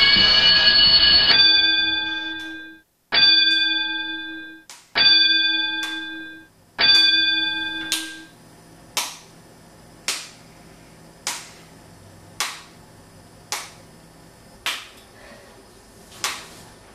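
A bell rings out and is struck three more times, about two seconds apart, each stroke fading away. Then a clock ticks steadily, about once a second.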